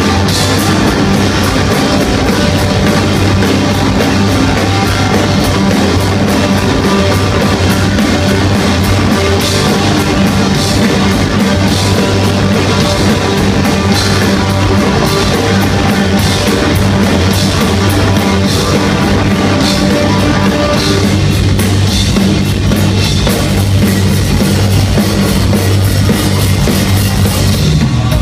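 A live rock band playing loud, heavy music on electric guitars, bass and drum kit. The sound thins out somewhat after about two-thirds of the way and breaks off near the end.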